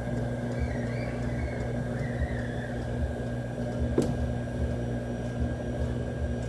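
Electrolux washing machine running: a steady motor hum over an uneven low rumble, with a single sharp click about four seconds in.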